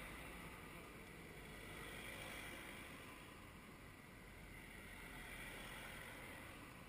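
Faint traffic noise as cars drive past on the street, swelling and fading gently.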